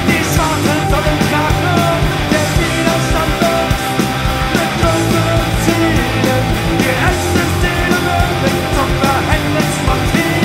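Rock band playing live: drum kit and bass guitar driving a steady punk-rock beat, with a singer on the microphone.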